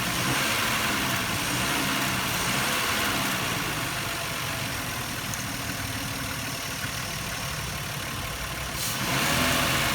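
2000 Nissan Maxima's V6 engine being revved, its pitch rising and falling over the first few seconds, then settling back to a steady idle before rising again near the end.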